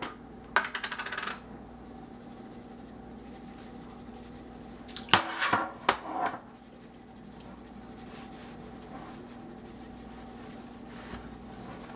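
Garlic salt shaken from a shaker in a quick rattle near the start, then a few sharp metal clanks about five to six seconds in as the rotisserie spit rod is turned against a metal tray. A steady low hum runs underneath.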